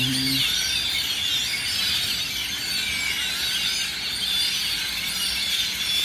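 A large flock of birds roosting in trees, calling all together in a dense, continuous din of shrill, squeaky chatter.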